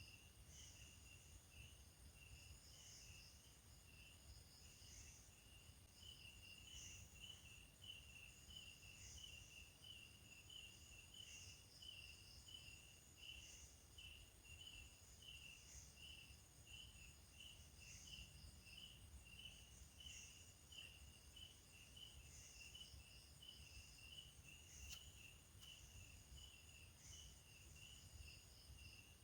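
Crickets chirping at night, faint: a steady run of short chirps about two a second, with a higher buzzy insect call repeating every couple of seconds over a low background rumble.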